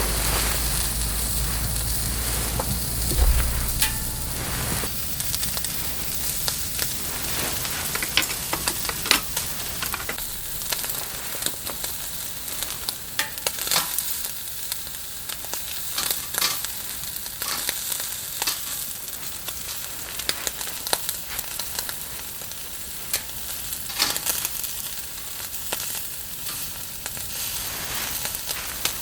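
Food frying in a pan, a steady sizzle with many small pops and crackles scattered through it. A low rumble runs under the first few seconds.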